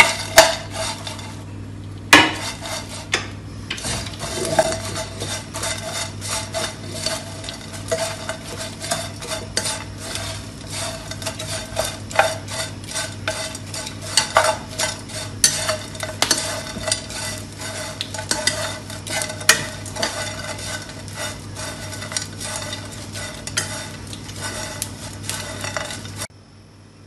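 Small dried fish being pan-roasted until slightly crisp in a non-stick frying pan, tossed with chopsticks. The sound is a constant rapid scraping and clicking of the chopsticks against the pan and the brittle fish, over a steady low hum. It stops abruptly near the end.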